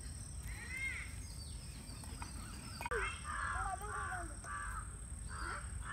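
Crows cawing: one call about a second in, then a run of short, harsh caws in quick succession from about three seconds in.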